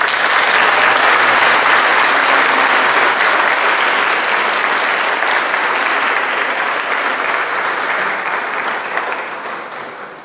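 Audience applauding, a dense steady clapping that fades away over the last second or so.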